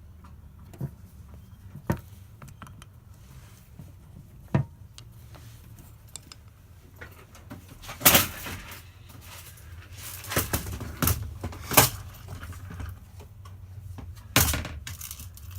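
Small clicks and knocks of a plastic remote head key shell and its parts being handled and worked apart with a screwdriver, sparse at first, with several louder sharp knocks and clatters in the second half.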